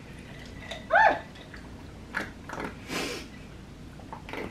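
Sucking hard on a drinking straw in a cocktail, with two short noisy slurps, while a candy octopus is stuck in the straw. A brief falling vocal sound comes about a second in.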